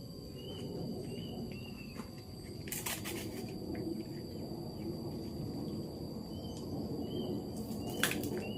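Outdoor ambience of insects trilling steadily, with a bird repeating a short call in two runs, one early and one from about two-thirds of the way in. Underneath is a low steady rush, and there are a couple of sharp knocks, about three seconds in and near the end.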